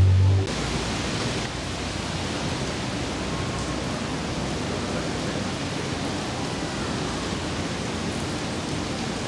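A car's low engine note cuts off about half a second in, leaving steady rain hiss.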